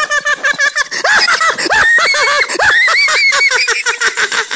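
A person's loud, Joker-style cackling laugh: a long, unbroken run of quick "ha" syllables, several a second.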